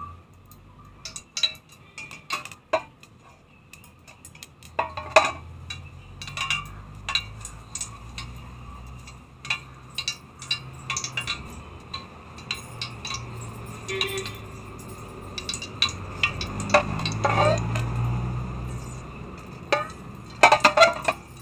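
Aluminium cooking pot with oil heating on a gas stove: scattered light clinks and knocks of the pan and kitchenware over a low rumble that comes in about four seconds in and swells near the end. A few louder knocks come near the end as the pot is tilted.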